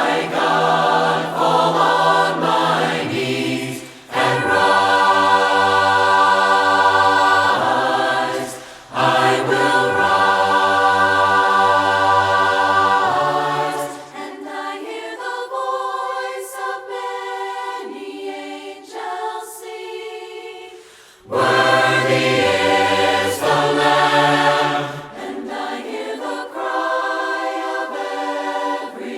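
A cappella choir singing a hymn in several-part harmony, holding long chords. The low voices drop out for several seconds in the middle and come back near the end.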